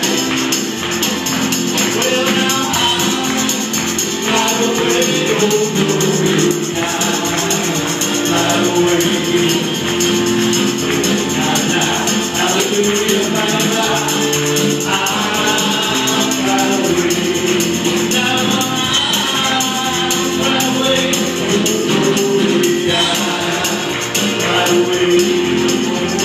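Live gospel worship music: a group of voices singing over keyboard and band, with a tambourine shaken in a steady rhythm.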